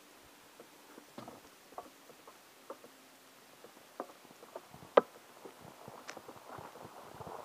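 Sparse light clicks and taps over a quiet background with no engine running, one sharper click about five seconds in. A denser patter of taps builds near the end.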